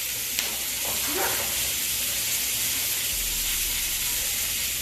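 Creamy garlic butter sauce with asparagus sizzling steadily in a pan on the stove, with a faint click shortly after the start.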